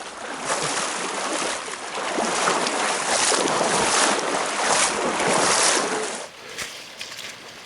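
Loud rushing, splashing water from a river crossing, mixed with wind noise on the microphone; it stops abruptly about six seconds in, leaving only faint clicks.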